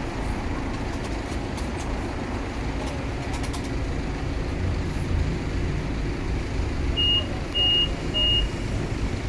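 Road traffic: a steady low rumble of engines and tyres. Near the end, three short high beeps about half a second apart.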